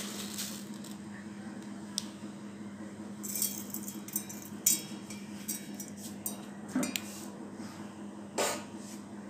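Steel kitchen bowls and a grinder jar being handled, giving a series of light clinks, rattles and knocks, a sharp one about halfway through. A steady low hum runs underneath.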